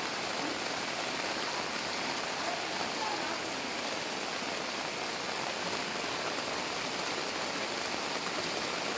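Heavy rain pouring steadily with floodwater running over the road, an even, unbroken hiss.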